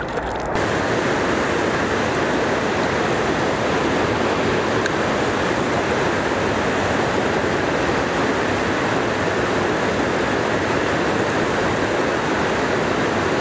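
Steady rush of water pouring over a small river weir and running through shallow rapids, starting abruptly about half a second in.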